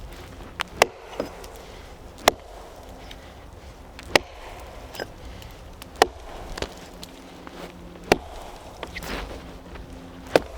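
Wood being chopped: six sharp blows, about one every two seconds, with a few lighter knocks between.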